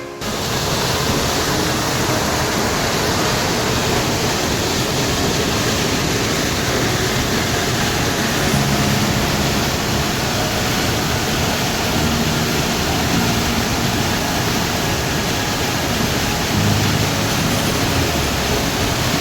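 Waterfall: a loud, steady rush of falling water that cuts in suddenly at the start.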